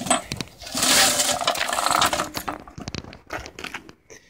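Metal pieces clattering and clinking, a dense run of sharp knocks and rattles that thins out to scattered clicks after about two and a half seconds.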